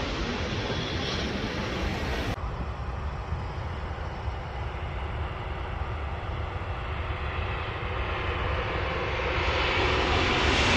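Airliner engines on landing approach: a steady rumble and rush that grows louder over the last few seconds as the plane comes nearer. About two seconds in, the higher hiss drops out abruptly.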